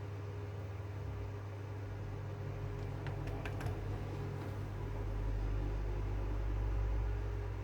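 Steady low electrical hum with a faint higher tone over it, a few light clicks about three seconds in, and a low rumble swelling near the end.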